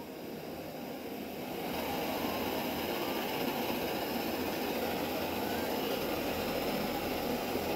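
Soto Stormbreaker multifuel stove burning canister gas at full flame under a pot of water: a steady burner roar that grows louder over the first two seconds, then holds.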